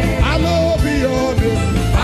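Gospel worship music with a steady drum beat and bass, a voice or lead instrument gliding over it.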